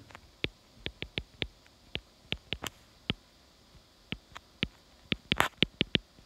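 Stylus tapping and clicking on a tablet screen during handwriting: irregular sharp ticks a few times a second, coming quicker in a short cluster near the end.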